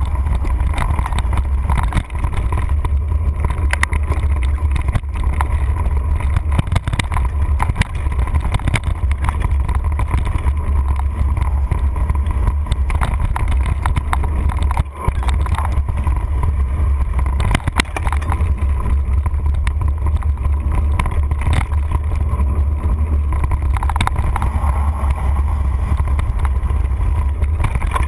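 Mountain bike riding fast over a dirt singletrack, heard from a handlebar-mounted camera: a loud, steady low rumble of wind and vibration on the microphone, with scattered knocks and rattles as the bike hits bumps.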